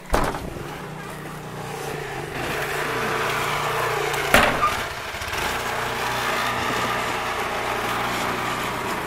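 Small snowblower engine running steadily, with a sharp crack about four and a half seconds in.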